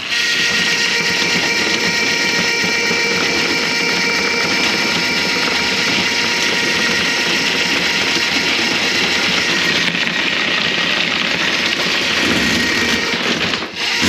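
A motor-driven machine running steadily, with a constant whine over a noisy hiss; it dips briefly near the end.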